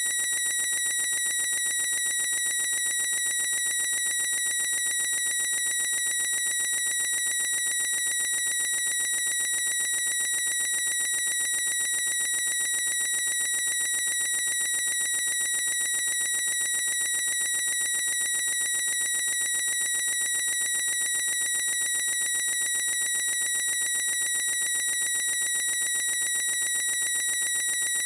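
A boy's high-pitched squeal held as one unbroken steady tone, never changing in pitch or loudness.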